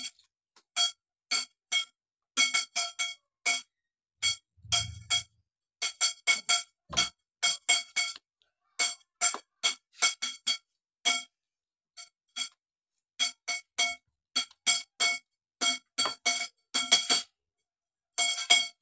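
Many short, sharp metallic taps in irregular runs, each ringing at the same pitch, as the steel tubes and joints of a shoe rack are knocked together during assembly. A dull thump comes about five seconds in and another about seven seconds in.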